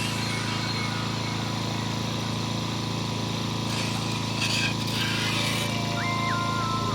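Steady drone of a running vehicle engine, with a short stepped electronic beeping tune starting near the end.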